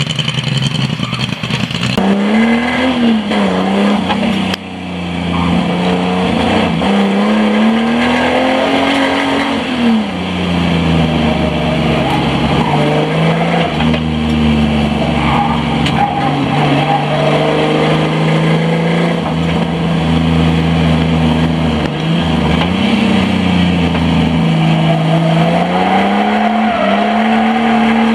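Car engine heard on board during a lap of a race circuit, the revs climbing and dropping again and again through the corners and gear changes.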